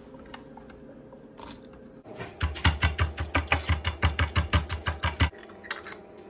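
Pestle pounding garlic cloves and salt in a heavy stone mortar: a quick, even run of dull crushing strikes that starts about two seconds in and stops about a second before the end.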